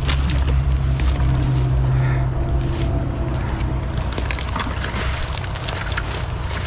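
Dry twigs and brush crackling and snapping as a thorny thicket is pushed through and grabbed by hand, over a steady low rumble.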